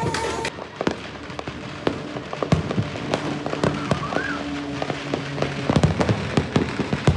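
Fireworks and firecrackers going off all around in an irregular stream of sharp bangs and crackles, with the loudest bangs near the end.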